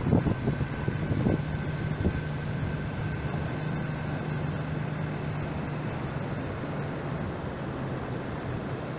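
A farm tractor's engine running steadily with a low hum, fading about seven seconds in, over a steady rush of wind and surf.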